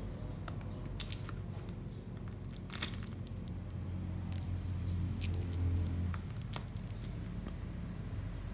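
Scattered clicks and crinkles of packaging being handled during an unboxing, the sharpest about three seconds in, over a steady low hum that swells in the middle.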